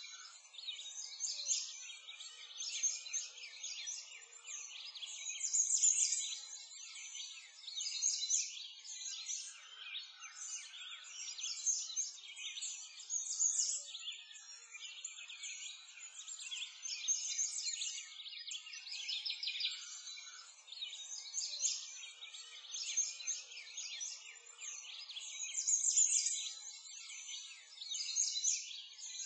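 A dense chorus of small birds chirping and singing, many quick overlapping calls that swell and fade every few seconds.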